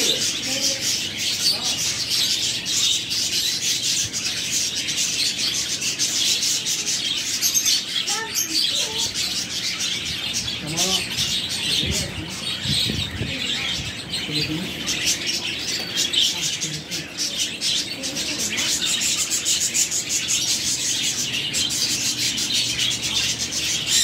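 Many caged budgerigars chirping and chattering at once in a dense, unbroken chorus, with a few lower calls near the middle.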